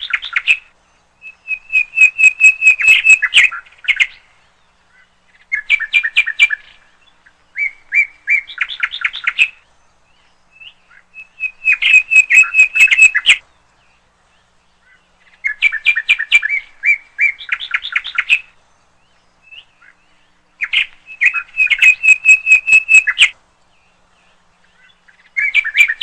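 A songbird singing: bursts of rapid, high chirping notes delivered in phrases of one to three seconds, repeated about seven times with short pauses between them.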